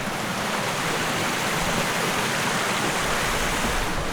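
Fast-flowing mountain creek rushing steadily.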